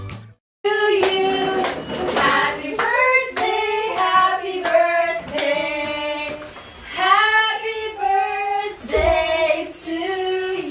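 Several women singing a birthday song together. A half-second dropout to silence comes at the very start.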